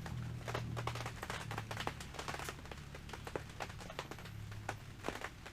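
Light, irregular metal clicks and taps, a few a second, as brake pads and a motorcycle rear brake caliper are handled and worked together, over a low steady hum.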